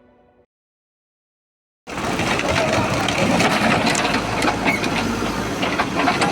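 Intro music fades out, followed by a second and a half of silence. Then loud street noise cuts in about two seconds in: a dense, steady din of traffic and bustle with many sharp clicks and knocks.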